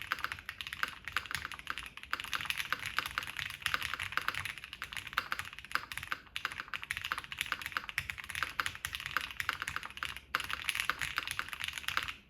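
Fast continuous typing on an ai03 Vega mechanical keyboard with Gateron Ink switches: a dense stream of key clacks, with a brief pause about ten seconds in, stopping suddenly near the end.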